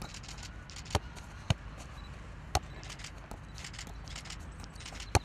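Football bouncing off a player's head during keepy-uppy: a few sharp knocks at uneven intervals, the loudest near the end.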